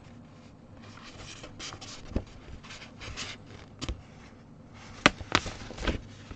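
Handling noise from a cross stitch kit's printed paper: soft rustling broken by a few sharp taps and clicks, the loudest about five seconds in.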